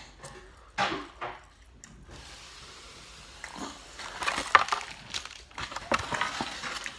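Wax-paper food liner crinkling and a molded-fibre takeout container being handled and moved on the table, a dense run of crackles and clicks from about four seconds in, with one short louder sound about a second in.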